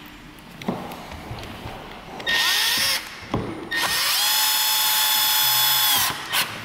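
Milwaukee cordless screwdriver driving screws into a plastic battery casing. A short burst of motor whine comes about two seconds in, then a longer steady run of about two and a half seconds; each rises in pitch as the motor spins up. A couple of light knocks fall between the runs.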